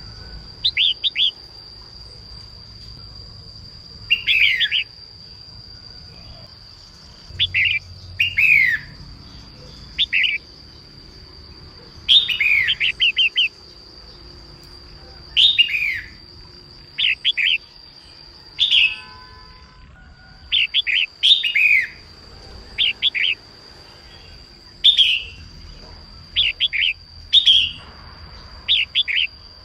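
Female red-whiskered bulbul calling: short bursts of quick, falling chirps, repeated every second or two. A steady high tone runs behind, breaking off briefly about two-thirds of the way in.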